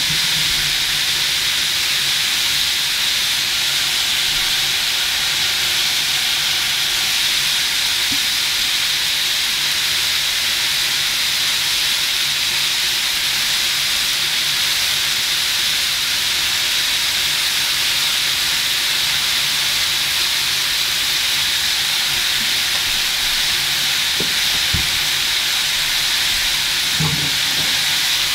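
Cauliflower, carrot and greens sizzling in a hot nonstick frying pan, a steady, even hiss. A few light knocks come near the end.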